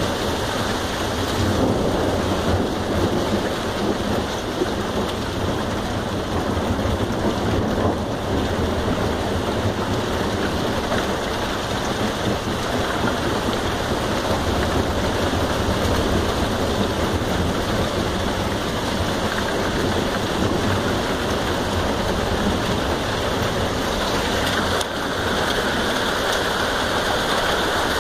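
Heavy rain falling steadily in a thunderstorm, with thunder rumbling low underneath.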